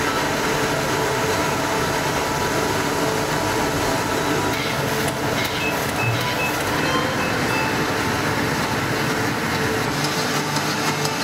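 Printing press running in a press hall: a steady, dense mechanical clatter and hum.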